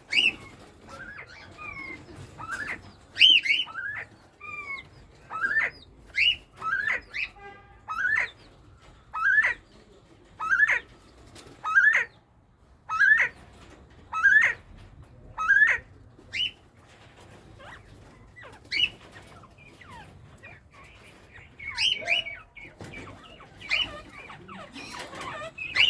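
Northern bobwhite quail calling in breeding season: loud, sharp rising whistled notes repeated about once a second for around ten seconds, with softer chirps and squawks around them and another burst of calls near the end.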